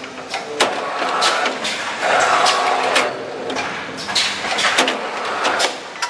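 Automatic power-strip assembly machine running at its spot-welding station: many sharp irregular clicks and clacks of the machine's moving parts, with stretches of rushing noise.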